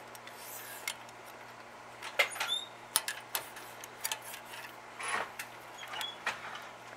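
Adjustable wrenches clicking and knocking against a thin aluminum flat bar as it is clamped and twisted into shape, a string of sharp clicks with a brief squeak, over a faint steady hum.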